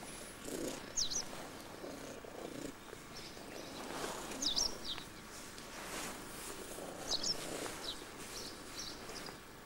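Ginger domestic cat purring close to the microphone as it is stroked and rubs against a person, the purr swelling and fading slowly. A few short high chirps cut in over it.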